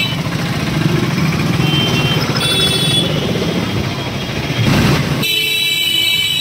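Busy street traffic din with vehicle horns honking twice, a short honk a little past halfway and a longer one near the end.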